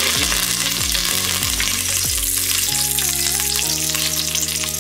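Fresh curry leaves sizzling steadily in hot oil in an aluminium pressure cooker, the sizzle starting suddenly as they hit the oil.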